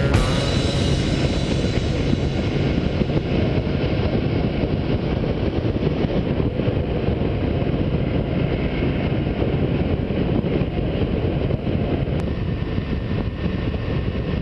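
2006 Honda Shadow 750's V-twin engine running steadily at highway cruising speed, mixed with steady wind rush on a helmet-mounted camera.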